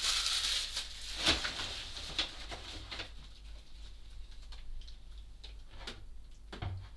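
Small handling noises off-frame: a rustle in the first second, then a few scattered clicks and taps over a low hum.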